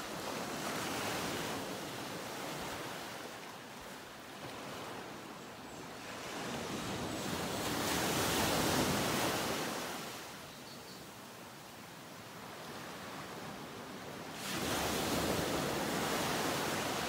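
Ocean waves washing in: a steady rush of surf that swells and ebbs, loudest about eight seconds in and rising again sharply near the end.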